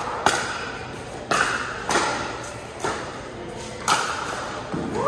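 Pickleball rally: paddles striking the hollow plastic ball with sharp pops, about five hits roughly a second apart, ringing and echoing in a large hall. A voice starts near the end.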